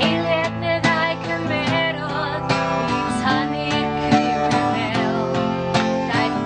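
Acoustic guitar strummed in a steady rhythm while a woman sings a folk song in Welsh, her voice wavering with vibrato on held notes.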